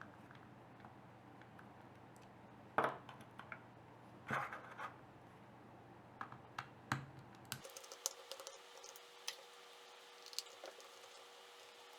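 Small clicks and scrapes of a DVD recorder's plastic remote control being handled and taken apart, with two louder clicks about three and four seconds in and a run of lighter ticks after the background hum drops out partway through.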